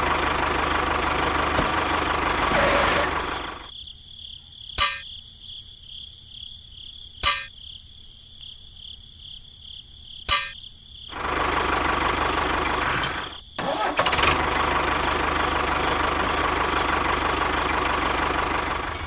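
A small model-tractor motor running steadily, then cut off for several seconds. Three sharp clicks come in the pause, and then the motor runs again.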